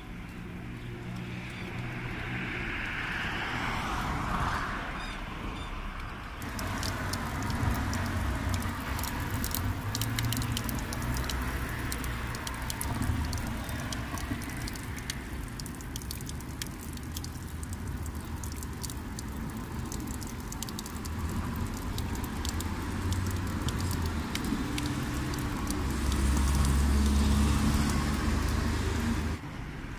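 A motor vehicle running, its low engine hum rising and falling in pitch, with scattered clicks and crackles over it. The hum is loudest near the end.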